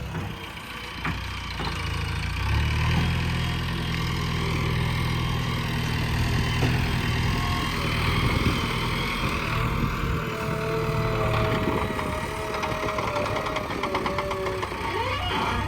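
Backhoe loader's diesel engine running and working, its note strengthening about a second and a half in and holding steady. A thin whine joins in over the last few seconds.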